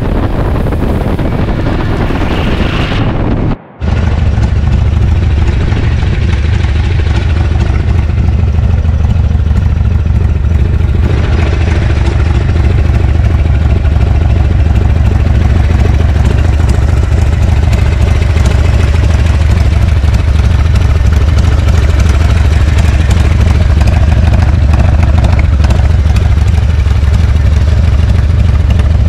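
A 1986 Harley-Davidson FXRP's Evolution V-twin idling steadily and loudly while parked. It comes after a few seconds of riding noise with wind on the microphone, which cuts off abruptly.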